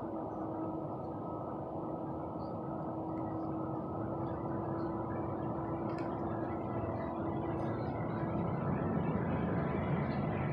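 A steady low hum carrying one held tone, which stops about eight and a half seconds in while the hum grows slightly louder. A single sharp click comes about six seconds in.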